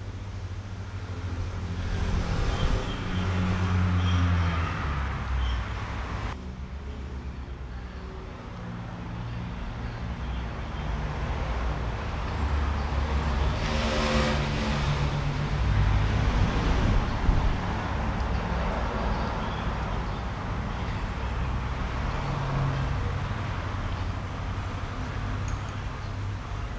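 Road traffic going past: a low rumble of car engines and tyres that swells and fades as vehicles pass, loudest around the middle.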